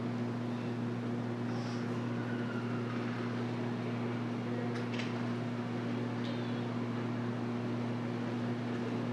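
Room tone: a steady low mechanical hum with a faint hiss above it, and a single soft click about five seconds in.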